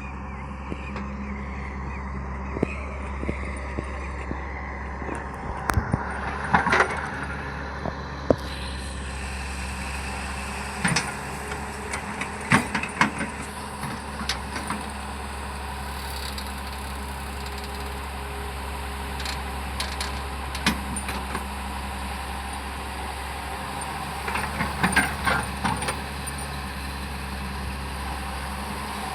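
Hyundai hydraulic excavator's diesel engine running steadily while it works, with bursts of sharp knocks and clanks several times.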